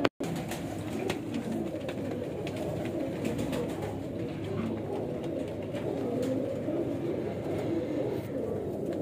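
Several Indian zakh pigeons cooing together in a loft, a continuous overlapping murmur of low coos.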